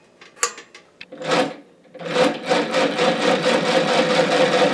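A few clicks from the push-button gas valve of the engine's burner, then, about two seconds in, a home-built 8-cylinder Stirling engine running with a fast, steady mechanical clatter.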